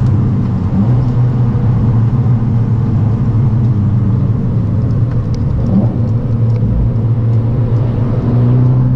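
In-cabin engine and road noise of an Abarth 695 Ferrari edition, its turbocharged 1.4-litre four-cylinder holding a steady drone at road speed, a little louder near the end.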